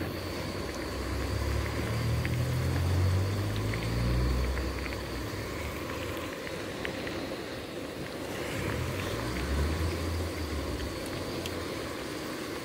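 Seaside ambience of wind and waves: a steady rush with a low rumble that swells over the first few seconds and again about two-thirds of the way through.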